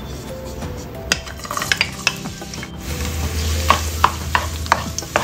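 Chopped garlic sizzling in hot cooking oil in a nonstick wok, with a wooden spatula clicking and scraping against the pan as it is stirred. The sizzle grows louder about three seconds in.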